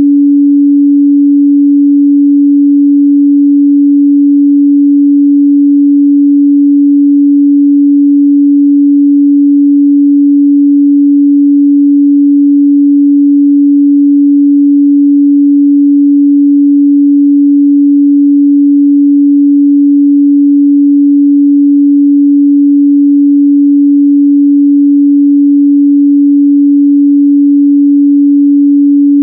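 A continuous 285 Hz sine-wave test tone, one steady pitch at constant loudness, used to check a speaker's or headphone's response in the midrange.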